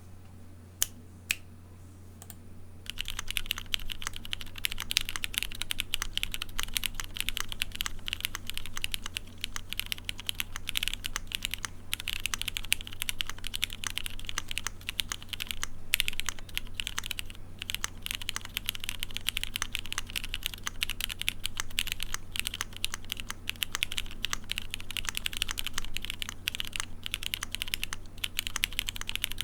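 Keychron Q3 mechanical keyboard with lubed Cherry MX Black Hyperglide linear switches on an aluminium plate, gasket-mounted. A few single keystrokes come first, then steady fast typing from about three seconds in.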